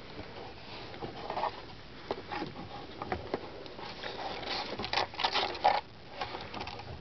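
Rustling and light knocks of things being handled and pulled down from a shelf, with a busier stretch of rustling about five seconds in.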